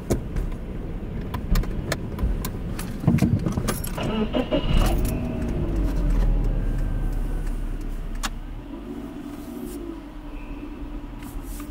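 Inside a slowly moving car: a steady low engine and road rumble that swells through the middle, with scattered clicks and jingling, and twice a short wavering tone.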